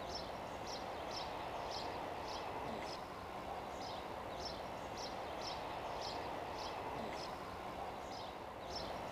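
Outdoor ambience: steady background noise with a short high chirp repeating about twice a second, with brief pauses in the chirping about three seconds in and again about seven seconds in.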